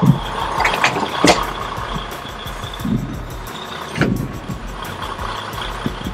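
Semi tractor coupling to a trailer: the trailer's kingpin enters the jaw of a Jost air-release fifth wheel over steady truck noise, with sharp knocks right at the start, about a second in and again about four seconds in.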